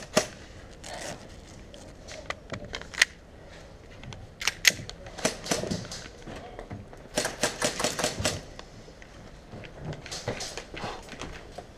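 Airsoft guns firing: scattered single shots, short clusters, and a rapid burst of about eight shots roughly seven seconds in, each a sharp snapping click.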